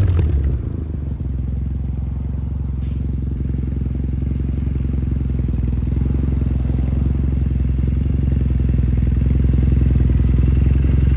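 Exhaust of a 2015 Triumph Bonneville T100's air-cooled parallel-twin engine dropping back from revs in the first second, then idling steadily.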